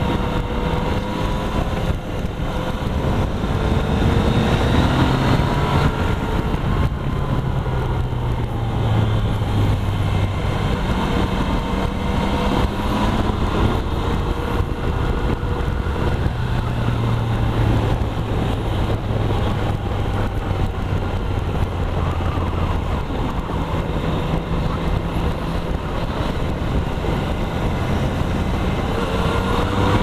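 Motorcycle engine running under way, its pitch rising and falling several times with throttle and gear changes, over a steady rush of noise.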